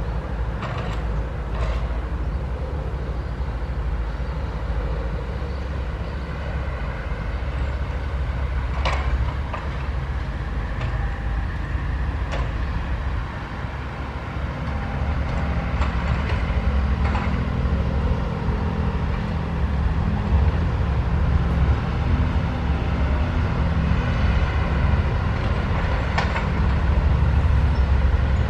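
SANY 135F excavator's diesel engine running under working load, with a few sharp metallic clanks scattered through. The engine grows louder and heavier from about halfway through, as it works harder.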